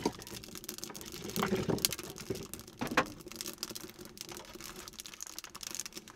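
Wood fire crackling in a small wood stove: irregular sharp pops and ticks, with a couple of louder knocks about one and a half and three seconds in.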